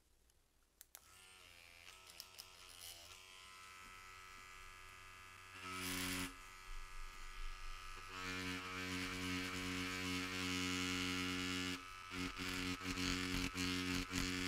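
Cartridge leather tattoo machine at 7 volts with a large beveler tip, buzzing steadily as it hammers a beveled line into leather. The buzz comes in faintly about a second in and gets much louder from about halfway, with a brief break near the end.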